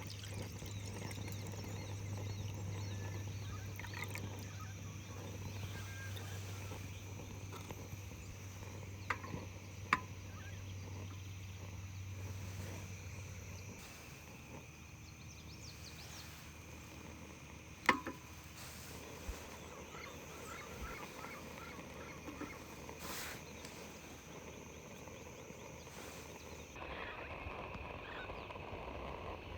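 Outdoor campsite ambience with a steady low hum that cuts off about fourteen seconds in, a steady high-pitched tone that stops near the end, and a few sharp clicks, the loudest about eighteen seconds in; faint calls of farm fowl are mixed in.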